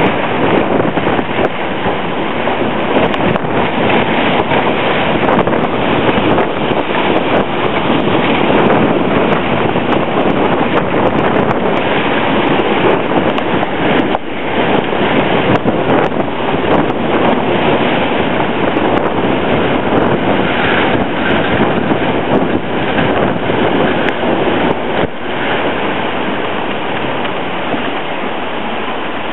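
Hurricane wind and heavy rain, a loud steady rush, with gusts buffeting the camera's microphone.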